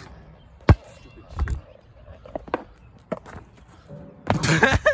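A basketball striking the hoop with one sharp bang about a second in, then thudding on the asphalt court and a few lighter knocks. Near the end, a brief loud burst of a person's voice.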